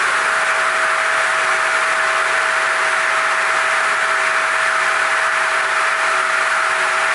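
Lignuma TR 800 circular sawmill running with its chain feed moving: a steady machine noise with a constant mid-pitched whine.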